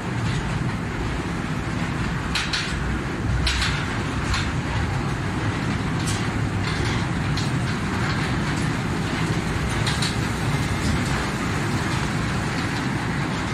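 Small electric kids' party train running on its track: a steady low rumble of wheels on rail, with a handful of sharp clicks at irregular intervals.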